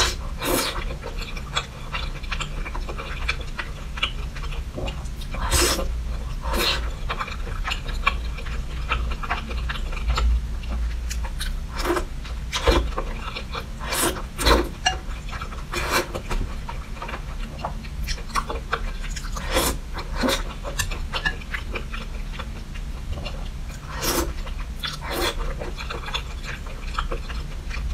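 Close-miked eating of wide flat noodles in chili sauce: wet chewing, slurping and lip smacks, with irregular sharp smacks and sucks every second or two over a low steady hum.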